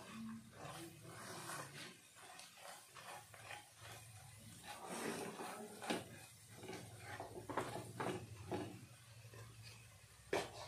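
Silicone spatula stirring and scraping onions and gram flour around a frying pan in irregular strokes, a few of them louder: the besan being roasted with the onions.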